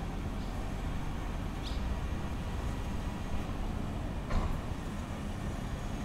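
Residential street ambience: a steady low rumble of distant traffic, with a short high chirp about a second and a half in and a soft knock a little after four seconds.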